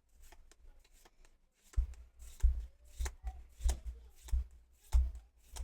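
Pokémon trading cards being handled and flipped through one at a time. Each card makes a short slide-and-tap, with a soft thump under it, about every half second after a quieter first second and a half.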